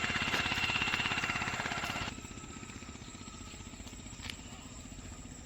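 An engine running steadily with a fast, even beat. It is louder for the first two seconds, then drops and carries on more quietly, with a brief click about four seconds in.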